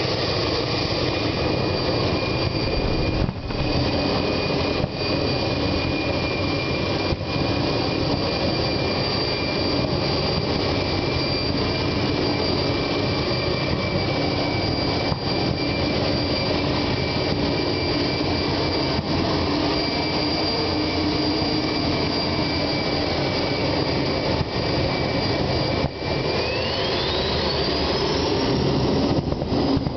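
Homemade gas turbine jet engine running steadily: a continuous roar with a high turbine whine on top. Near the end the whine climbs sharply in pitch as the engine spools up.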